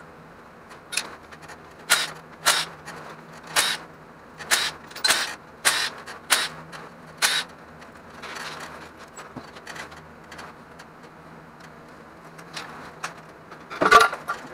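Hand ratchet clicking in a run of about ten short strokes, roughly two a second, as the 10 mm front-cover bolts on a GM 5.3 LS engine are backed out. It is followed by lighter scattered ticks and a metallic clatter near the end.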